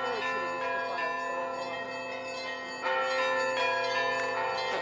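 Russian Orthodox church bells ringing together: several bells of different pitches struck in overlapping strokes, each left ringing. A fresh, louder stroke comes in about three seconds in.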